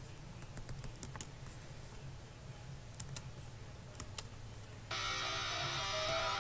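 A few scattered light clicks from a computer keyboard over a low steady hum, then about five seconds in a rock song with guitar starts playing.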